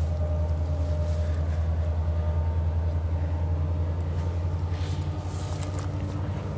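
Steady low engine drone with a fast, even pulse, easing off slightly towards the end.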